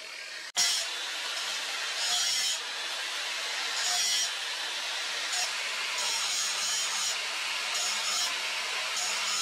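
Angle grinder with an abrasive disc grinding the steel of a forged spear head, made from a wheel bearing race. A steady hiss of grinding metal, broken off briefly about half a second in, swells several times as the disc bites harder.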